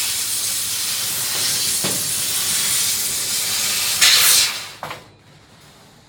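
A steady loud hiss of rushing air, surging briefly about four seconds in, then cutting off about five seconds in.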